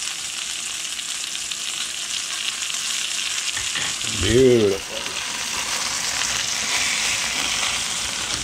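Two whole brook trout frying in butter in a cast-iron skillet: a steady sizzle.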